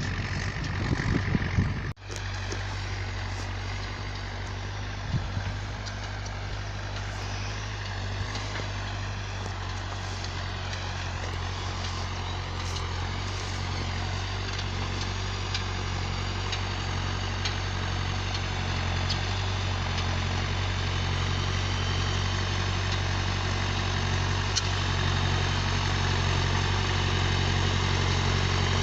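John Deere 310A backhoe loader's engine running steadily while it pulls a disk harrow across the field, slowly getting louder toward the end. For the first two seconds wind buffets the microphone, and that cuts off suddenly.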